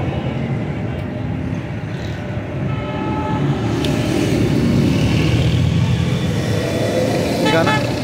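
Steady low rumble of street traffic and a vehicle engine running nearby, with a short higher-pitched sound near the end.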